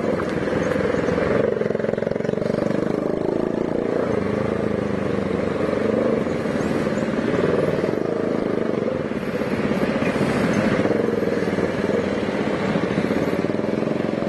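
Pulsar 200NS single-cylinder motorcycle engine running steadily while ridden slowly in traffic. Its exhaust sounds harsh and ugly because the silencer has come off the pipe.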